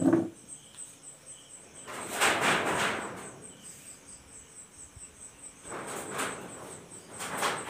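Crickets chirping steadily, a high pulsing at about five chirps a second. A short thump comes right at the start, and three longer noisy swishes come about two seconds in, around six seconds and near the end.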